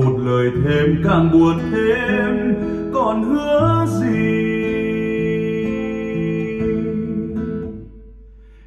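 Test music played through Wharfedale Evo 4.4 floor-standing speakers: a guitar-led track with sliding melody notes, then a long held chord that fades away near the end.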